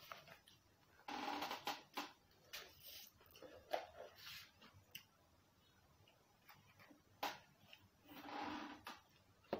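Faint eating sounds at a table: a few short bursts of slurping and chewing, with light clicks of plastic cutlery and food boxes.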